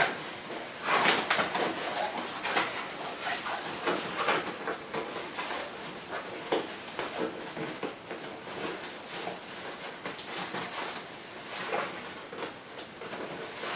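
Fabric rustling with scattered small clicks and knocks as the padded seat of a Cybex Mios stroller is handled and adjusted, in irregular bursts.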